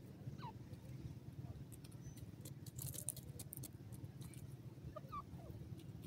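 Grey francolin foraging on dry soil: short pecking and scratching clicks, bunched about two and a half to three and a half seconds in, with a few faint, short descending chirps, over a low steady rumble.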